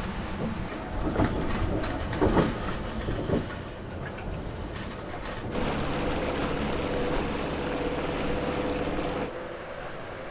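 Storm wind gusting against the boat, with a few louder surges. About halfway through, the sound gives way to a small outboard motor pushing an inflatable dinghy along, running steadily with a held hum, which drops away near the end.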